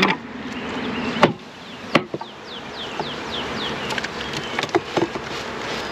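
Honey bees buzzing steadily around an open hive, with two sharp wooden knocks from hive boxes or frames being handled and a few lighter clicks later.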